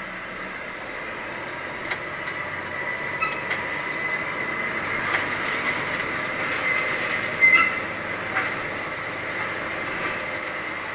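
Articulated lorry moving slowly, heard from inside the cab: steady running noise with a thin steady high whine, scattered clicks and rattles, and a short sharp loud squeal about seven and a half seconds in.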